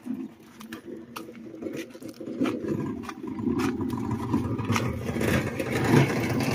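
A motor vehicle on the road getting louder as it approaches, its engine and tyres building over several seconds. A few light clicks come in the first two seconds.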